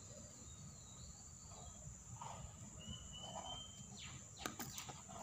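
Faint background with distant bird chirps and a steady high whine, then a few sharp clicks and rustles of a cardboard phone box being handled about four seconds in.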